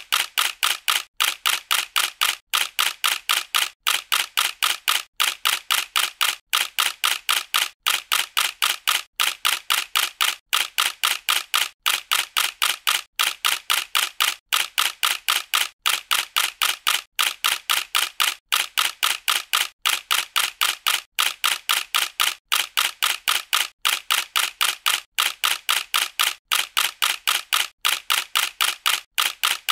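Camera shutter sound effect clicking over and over in an even rhythm, about three clicks a second.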